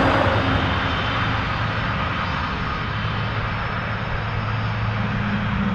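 Jet engines of a Malaysia Airlines Airbus A330 departing, a loud, steady engine noise with a low hum underneath.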